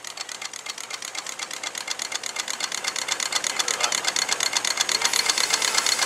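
Quarter-scale Sawyer Massey steam traction engine running, its exhaust beating in a quick, even rhythm that grows steadily louder.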